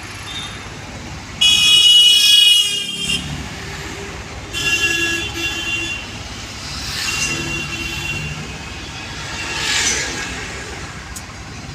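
Vehicle horns honking on a road: one loud horn blast about a second and a half in, lasting over a second, then two shorter, weaker horns, with vehicles passing twice. An engine idles steadily underneath.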